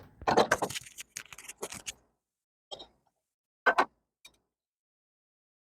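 Objects being handled: a quick run of clatters and rustles, then three separate short knocks or clicks with silence between them.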